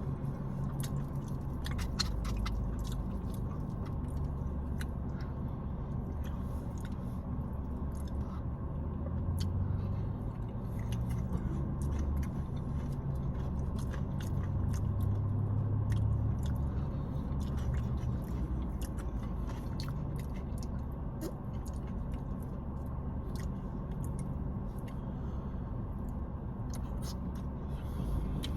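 Close-up mouth sounds of eating a KFC Famous Bowl: biting, chewing and small crunches, with many small wet clicks. A steady low hum runs underneath.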